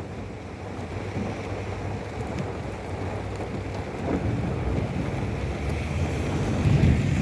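Heavy rain beating on a car's windows and body, heard from inside the car, with a low rumble building near the end.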